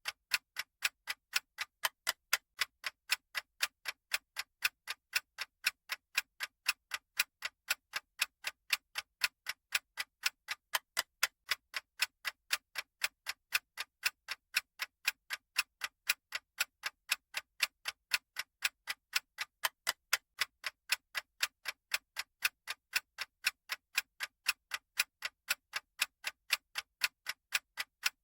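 Countdown-timer ticking sound effect: a steady clock-like tick at about two ticks a second, the ticks alternating slightly in loudness like a tick-tock.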